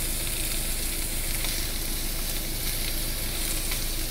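Pork slices sizzling in a hot cast-iron pan: a steady frying hiss with a few faint pops.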